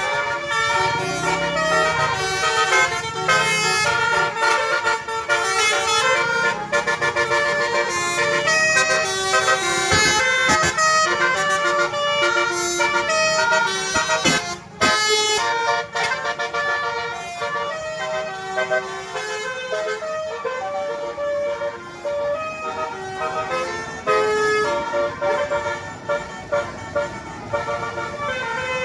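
Bus 'telolet' musical air horn of the Basuri type playing a melody note by note, with a brief break about fifteen seconds in.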